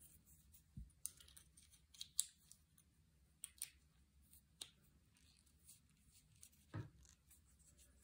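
Faint, scattered clicks and light scrapes of handling at a gun safe's electronic keypad as its new battery is fitted, with a duller knock near the end.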